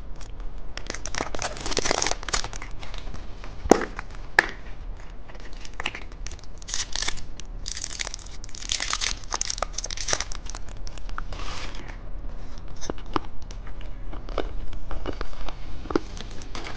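Plastic candy packaging being torn open and crinkled in the hands, rustling on and off in bursts, with two sharp snaps about four seconds in.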